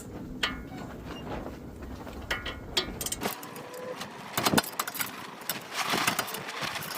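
Hand ratchet with an 18 mm socket clicking as the brake caliper bracket bolts are loosened and backed out. There are scattered metallic clicks and rasps, much busier after about three seconds.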